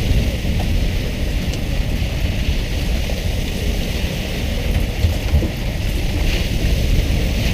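Steady hiss of a tuna boat's water sprayers raining onto the sea surface beside the hull, over a continuous low rumble.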